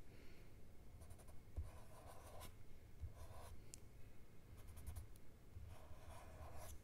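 Fine-point Sharpie permanent marker drawing short strokes on polypropylene film paper: several faint scratchy strokes, each about half a second long.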